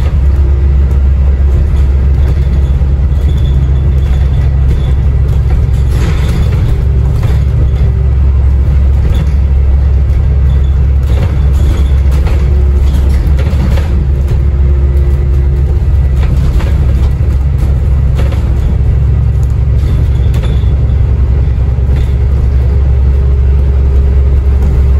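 Interior of an Alexander Dennis Enviro400 MMC diesel double-decker bus on the move: a loud, steady low rumble of engine and road noise through the cabin, with occasional knocks and rattles.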